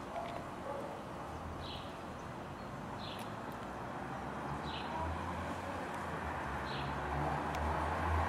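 Outdoor ambience: a short high chirp repeats about every one and a half to two seconds, over a low rumble that builds through the second half.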